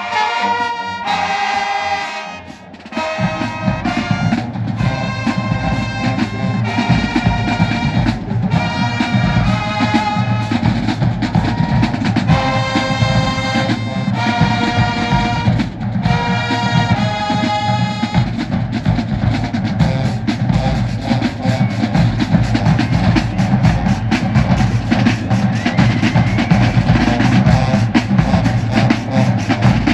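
High school marching band playing: the brass section plays short, loud chord phrases. About three seconds in, the drumline comes in with bass and snare drums. The brass drops out near two-thirds of the way through and the drums keep playing alone.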